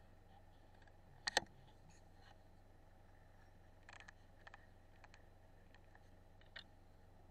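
Quiet handling clicks from a rifle and its scope: a sharp double click a little over a second in, then a few fainter ticks, over a steady low hum.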